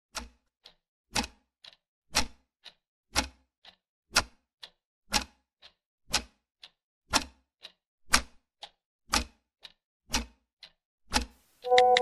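Wall clock ticking: a sharp tick once a second, each followed about half a second later by a softer tock. Near the end a chord of steady ringing tones comes in over the ticks.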